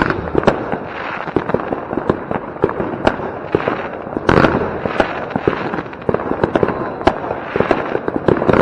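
Firework battery (Jorge Exclusive Collection 1) firing: a fast, irregular run of sharp bangs over continuous crackling, with a louder burst about four and a half seconds in.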